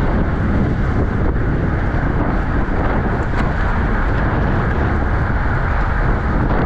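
Steady wind rushing over the microphone of a camera on a racing bicycle moving at speed, a loud even rumble with no breaks.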